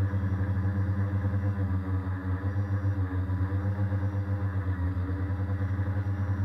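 Tricopter's electric motors and propellers humming steadily in flight, the pitch wavering slightly as the throttle shifts, heard up close from a camera mounted on the frame.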